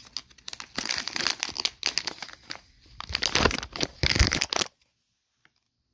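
Foil snack pouch crinkling and rustling as it is handled and opened, in two spells, the second ending abruptly.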